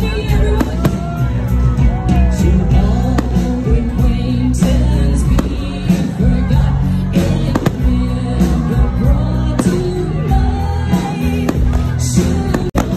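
Fireworks display: repeated bangs and crackles of aerial shells bursting, over loud music with singing.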